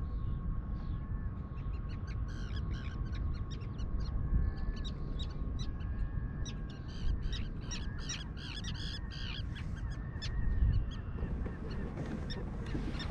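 A flock of birds giving many short, repeated calls, thickest in the middle of the stretch, over a steady low rumble.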